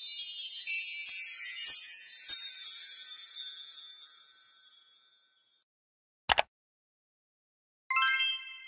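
Intro sound effects: a high, sparkling jingle-bell shimmer that fades out over about five seconds, a short sharp double click about six seconds in, then a bright bell-like ding near the end that rings and fades.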